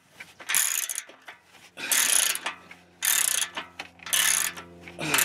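Ratchet wrench clicking through its back-strokes about once a second, five strokes in all, as the nuts on a muffler U-bolt clamp are tightened.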